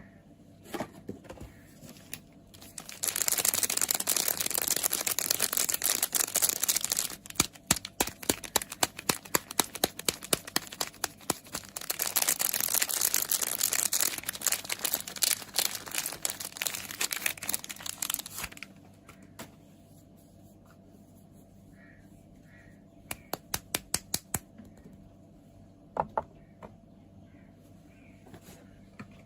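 Soap packaging being unwrapped: the wrapper crinkles and tears in two long stretches. Between and after them come runs of quick, sharp tapping on the packaging or soap.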